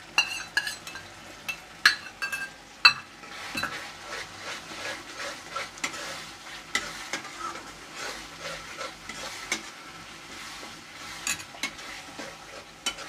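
A steel spatula stirring and scraping masala paste in a metal kadhai, with sharp metal-on-metal clinks, several in the first three seconds and a few near the end, over the steady sizzle of the masala frying.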